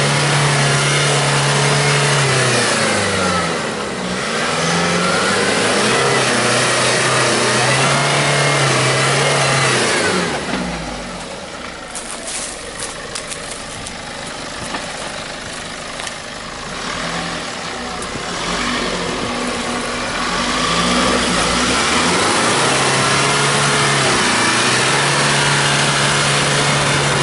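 Nissan Patrol 4x4's engine revving hard again and again, the pitch rising and falling, as it labours to drive out of a mud-filled pit. About ten seconds in the revs drop and it runs quieter for several seconds with a few clicks, then it revs hard again.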